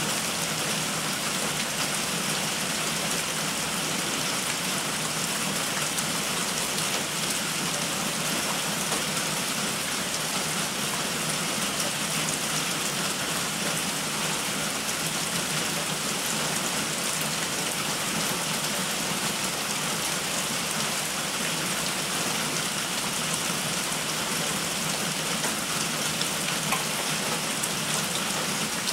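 Steady heavy rain falling on forest leaves, a dense even patter of drops.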